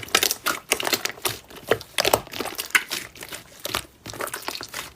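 Slime being squeezed and poked by hand, giving an irregular run of sticky clicks and crackles, several a second.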